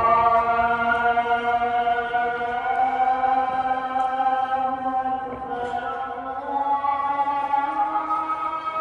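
Intro music of voices chanting long, held notes that change pitch slowly.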